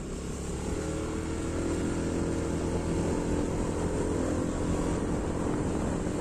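Motorcycle engine running while riding, heard from the rider's seat, picking up slightly in pitch and loudness about a second in, over steady road rumble.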